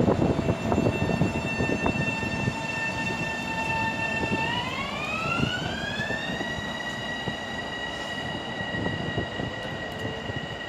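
Long Island Rail Road M7 electric train's traction-motor whine, a steady high whine that glides smoothly up in pitch about four seconds in and then holds at the higher pitch, over a low rumble.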